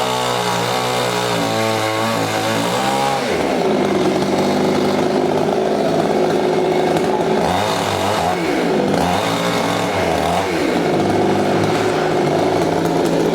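Two-stroke chainsaw running loud and steady, its engine pitch dipping and climbing back several times as it loads up and frees in the cut through a coconut tree trunk.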